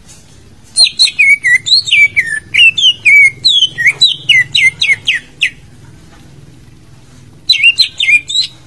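Green leafbird (cucak ijo) singing: a fast run of loud, slurred whistled notes for about five seconds, then a pause and a short burst of the same notes near the end. This is a lure song of the kind played to set a silent cucak ijo singing.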